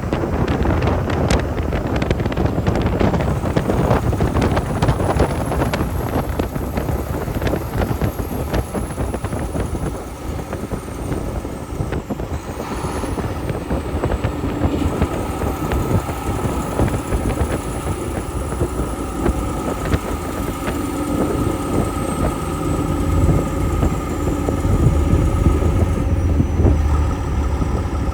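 Heavy logging truck driving, its diesel engine running steadily under the rumble of road noise.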